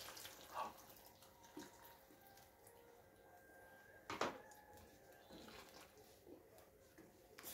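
Faint kitchen sounds: stock poured from a plastic tub into a pan of stew, one sharp knock a little past halfway as the tub is set down on the tiled counter, then a wooden spoon stirring in the pan.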